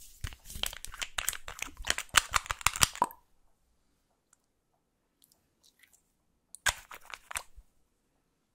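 A small glass nail-polish bottle having its cap unscrewed at close range: a dense run of crackly clicks and scrapes for about three seconds. A shorter burst of similar crackling comes nearly seven seconds in.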